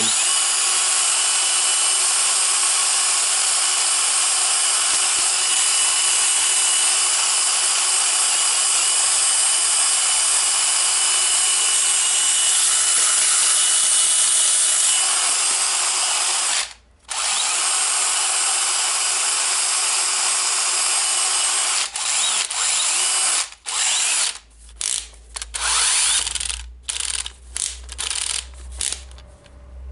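DeWalt DCD995 brushless drill/driver motor and gearbox running at speed with a steady whine, held for about sixteen seconds without cutting out: its cleaned battery terminal now makes good contact. It stops for a moment, runs again, then in the last third starts and stops in many short trigger bursts.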